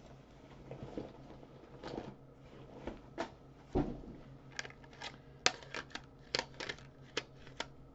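Calculator handled and its keys pressed: a few scattered clicks and a dull knock about four seconds in, then a quick run of about a dozen key clicks.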